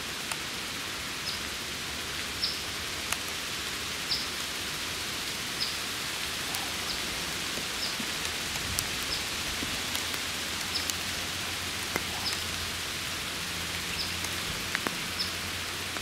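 Steady rain falling on woodland leaves, with occasional sharp ticks of heavier drops. A small bird repeats a short, high chip note about once a second.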